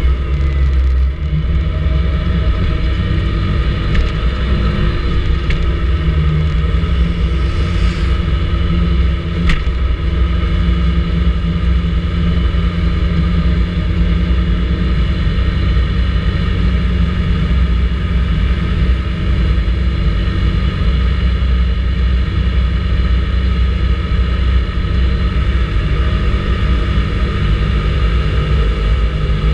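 Vespa GTS 300 ie scooter's single-cylinder four-stroke engine running steadily on the move, with a strong low rumble underneath and a short sharp tick about ten seconds in.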